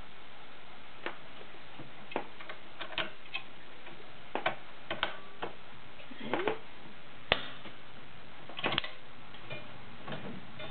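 Irregular clicks and clacks of a vintage Morse sewing machine's mechanism being worked and adjusted by hand, spaced unevenly with no steady sewing rhythm; the sharpest click comes about seven seconds in.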